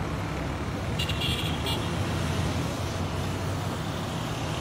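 Steady outdoor road-traffic noise with a constant low engine rumble. About a second in there is a brief high-pitched sound lasting under a second.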